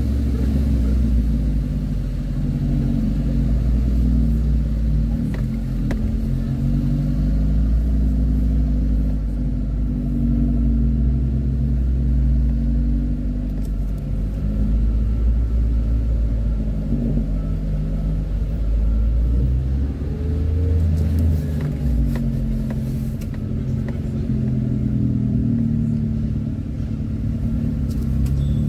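Car engine and road rumble from a car driving slowly in town traffic. The engine note rises and falls several times as the car pulls away and eases off.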